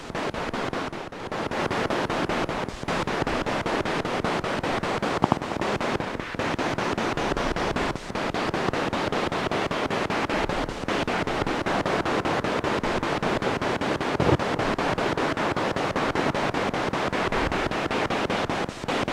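Spirit box radio rapidly sweeping through FM/AM stations, giving a steady hiss of static chopped into quick, even pulses, with a few brief dips.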